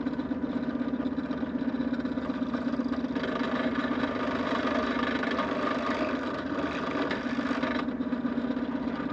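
Benchtop drill press motor running steadily while a titanium step drill bit cuts into a small metal crimp-ring terminal to enlarge its hole. A harsher cutting sound joins the motor's hum from about three seconds in until near the end.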